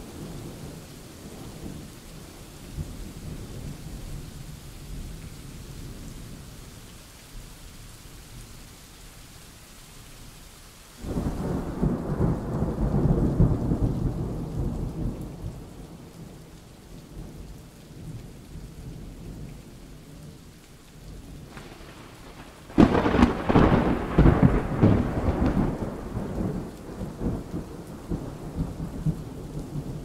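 Steady rain with two peals of thunder. The first breaks suddenly about eleven seconds in and rumbles for several seconds before fading. The second, louder and crackling, breaks about twenty-three seconds in and rolls off more slowly.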